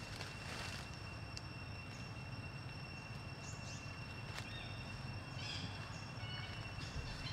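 Outdoor ambience: a steady low rumble under a steady high-pitched whine, with a few short, high chirps about halfway through.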